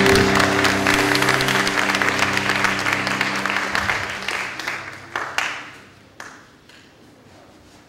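A number's final held chord ringing out under audience applause. The music fades first, then the applause thins to a few last claps and dies away about six seconds in.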